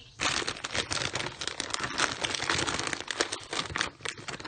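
A plastic snack bag, the popcorn bag, being handled and crinkled, with a dense run of crackling that starts suddenly just after the beginning and stops about four seconds in, followed by a few stray crinkles.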